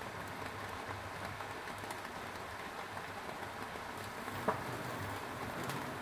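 Foil-wrapped tilapia sizzling and crackling over a gas burner flame, a steady hiss scattered with small crackles. One sharp pop comes about four and a half seconds in.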